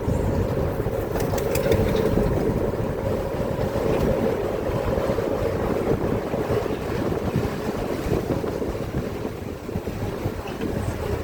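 Steady low rumble of a vehicle on the move, with a constant hum and some wind on the microphone.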